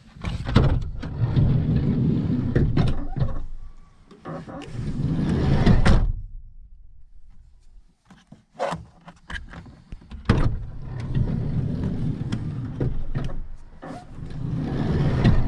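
Renault Kangoo's sliding side door being run along its rail twice: a long rumbling, grinding slide that stops abruptly about six seconds in, a few clicks, then a second long slide from about ten seconds on. The grinding is the unusual 'gori-gori' noise the owner notices from the door, with no foreign object visible in the rail.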